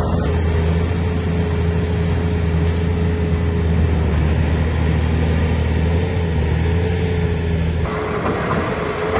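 Heavy construction machine's engine running steadily with a deep hum and a steady higher whine; the sound shifts near the end as the deep hum drops away and a harsher, higher noise comes up.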